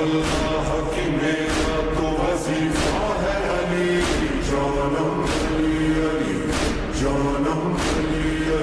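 Devotional chant: a chorus of voices holding long drawn-out tones over a steady beat, about three beats every two seconds.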